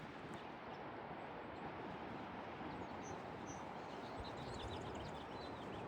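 Steady wind noise on the microphone, with a few faint, short bird chirps in the second half.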